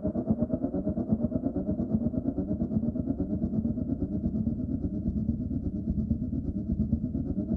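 Canal boat engine running steadily, with a rapid even beat of about five pulses a second.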